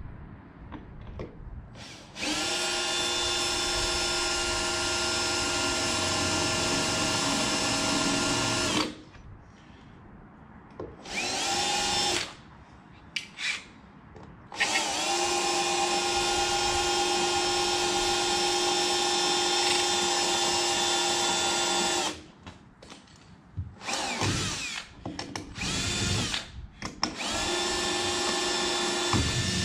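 Cordless drill running in several bursts, two of them about seven seconds long and the rest short. Each burst is a steady whine, and some begin with a quick rise in pitch as the motor spins up.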